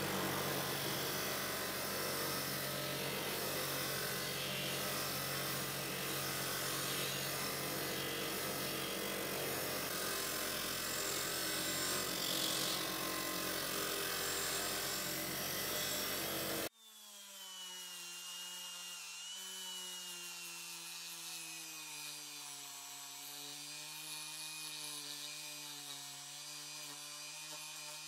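A metal buckle plate is pressed against a spinning wire brush wheel on a bench grinder: a scratchy rush over the steady hum of the motor. About two-thirds of the way through it gives way abruptly to a handheld rotary tool with a small brush, a quieter steady high whine that wavers slightly in pitch.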